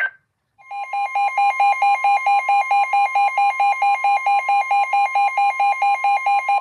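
Weather radio emergency alert tone: a steady high tone near 1 kHz (the 1050 Hz warning alarm) sounds loudly, with a second, lower beep pulsing rapidly over it at about five times a second. It marks the start of a new weather warning broadcast.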